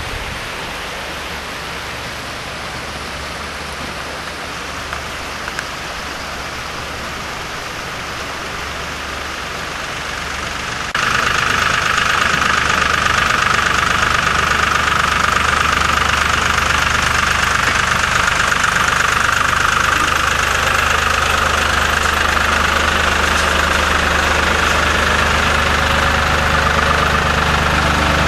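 A steady rushing noise, then from about eleven seconds in, abruptly and louder, an engine idling steadily with a high hum over its low note.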